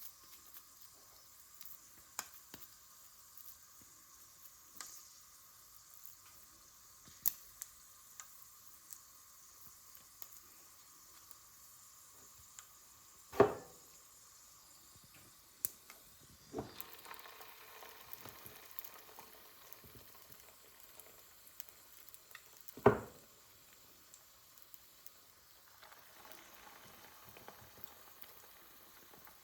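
Chicken shami kebab patties frying in oil: a faint steady sizzle with scattered small crackles. Two sharp knocks about 13 and 23 seconds in are the loudest sounds, with a few lighter knocks between them.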